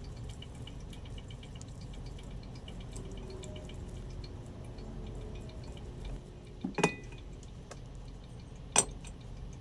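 A spatula stirring onions and garlic in an enamelled cast-iron pot, with faint small ticks, then two sharp knocks of the utensil about two seconds apart near the end.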